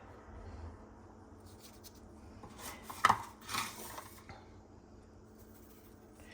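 Kitchen handling noises while fish is prepared for frying: a few brief knocks and rubbing sounds of dishes and utensils, clustered about three seconds in, over a low background hum.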